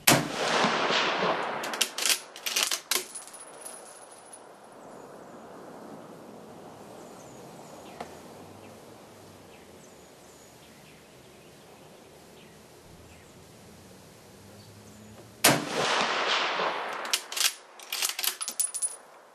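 Two shots from a Mosin-Nagant bolt-action rifle (7.62×54R), one at the start and one about fifteen seconds later. Each shot has an echoing tail lasting a second or two. A few sharp metallic clicks follow each shot as the bolt is worked to eject the case and chamber the next round.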